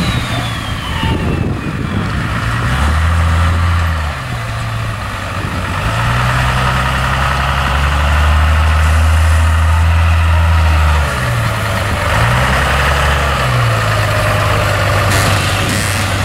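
Lifted mega mud truck's engine running as it drives across a field, its low note rising and dropping several times as the throttle comes on and off.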